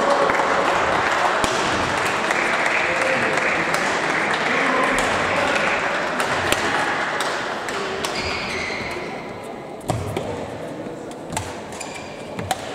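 Busy badminton hall: a steady hubbub of many voices, thinning after about eight seconds, with sharp racket-on-shuttlecock hits from play and a few short high squeaks of shoes on the court floor. The loudest hit comes about ten seconds in.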